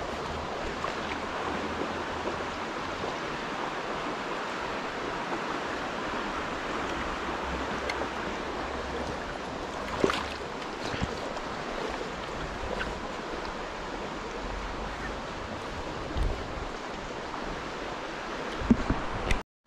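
River water rushing steadily, with a few short knocks about halfway through and near the end.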